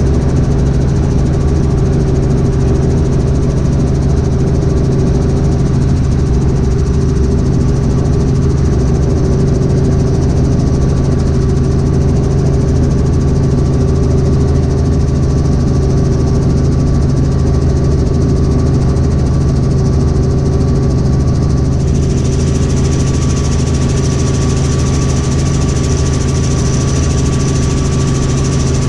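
Robinson R44 Raven II helicopter in cruise flight, heard inside the cabin: the steady drone of its six-cylinder piston engine and rotor. About two-thirds of the way through, a brighter hiss comes up over the drone and stays.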